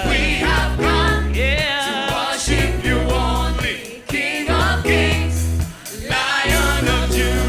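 Gospel worship song: voices singing together over a band with a prominent bass line.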